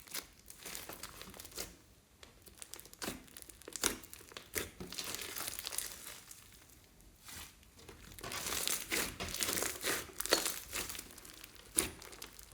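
Clear slime being kneaded and squeezed by hand, making irregular sticky crackles and clicks that grow denser in the second half.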